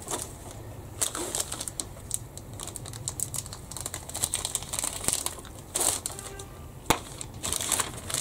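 Clear plastic bag crinkling and rustling as a grey plastic model-kit sprue is handled inside it, with many irregular small clicks and taps of the plastic and a sharper click just before seven seconds in.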